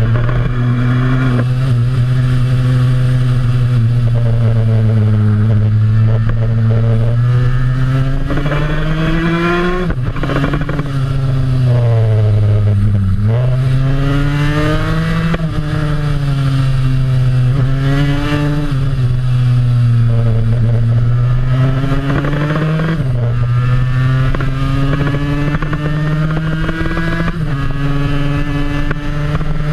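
1973 Yamaha RD350 two-stroke parallel twin, built as a TZ350 replica, heard from on board, revving hard up through the gears; the engine note climbs and falls repeatedly, with sharp drops at gear changes about ten, thirteen and twenty-three seconds in.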